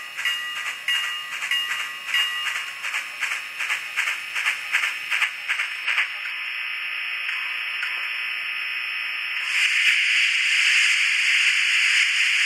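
Steam-locomotive sounds from an N-scale locomotive's DCC sound decoder, played through its tiny onboard speaker. Rhythmic exhaust chuffs quicken over a thin steady tone, then stop about six seconds in, giving way to a steady hiss of steam that turns much louder about three seconds later.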